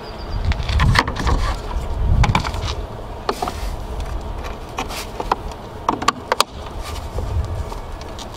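Hands working the air inlet tubes off the engine: irregular plastic clicks, scrapes and knocks, with low rumbling handling noise. The tubes are stubborn, held in little notches, and are being wrestled and pried loose.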